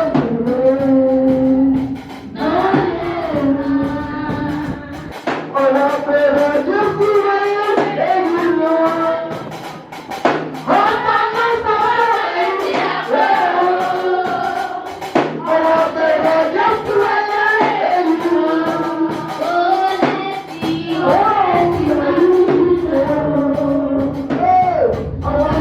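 Congregational or choir singing of a worship song with instrumental accompaniment, sustained melodic lines throughout; the bass drops out for a few seconds in the middle and comes back near the end.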